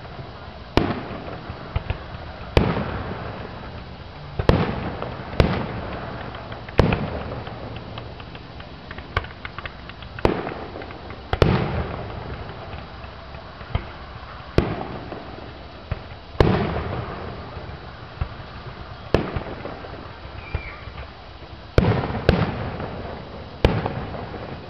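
Aerial fireworks display: a string of loud shell bursts every one to two seconds, each booming and echoing away, over a steady crackle.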